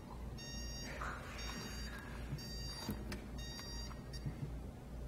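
Electronic timer alarm beeping in repeated high-pitched bursts of about half a second, roughly one a second, stopping about four seconds in. It is the signal that the time for a dose of medication has come.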